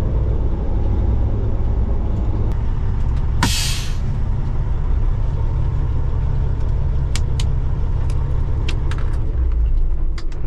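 Truck engine running steadily with a low rumble, warmed up to operating temperature. About three and a half seconds in comes a short hiss of released air, and a few light clicks follow near the end.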